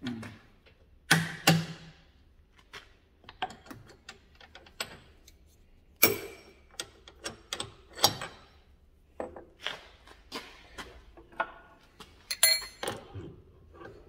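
Metal clicks, clunks and sharp knocks of tooling being changed in a milling machine spindle, the end mill coming out to make way for a drill chuck. The knocks come every few seconds, and one near the end rings briefly.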